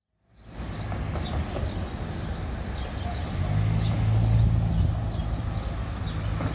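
Downtown street traffic: cars passing, with a steady low engine hum from about three seconds in. Repeated short high chirps sound above it. It starts after a moment of silence.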